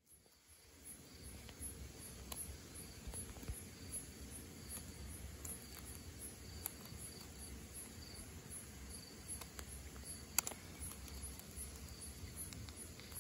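Night insects, most likely crickets, chirping steadily in evenly repeating pulses at two high pitches. Scattered faint clicks, with one sharper click about ten seconds in.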